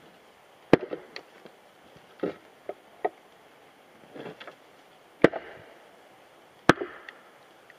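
Heavy wooden maul striking a steel wedge to split a log. There are three sharp blows, one about a second in and two close together near the end, with softer knocks of wood between them.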